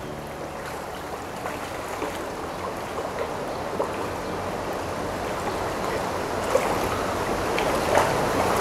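Splashing and churning water as a crowd of young steelhead trout thrash at the surface of a hatchery raceway, going after feed pellets; many small splashes over a steady wash, growing louder toward the end.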